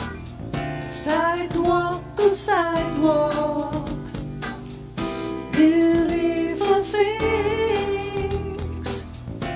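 A song with a sung vocal melody over instrumental backing and a steady beat.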